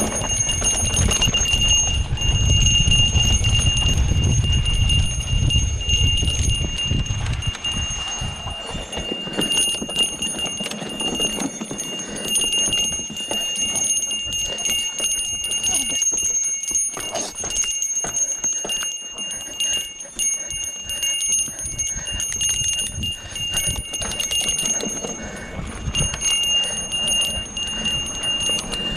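A small bell jingling nonstop as a mountain bike rattles down a rough trail, with many short knocks from the bike over the ground. A low rumble runs for the first seven seconds or so, then drops away.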